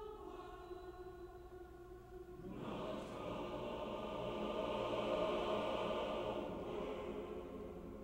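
Choir holding a chord. A fuller chord swells in about two and a half seconds in, then slowly fades away near the end.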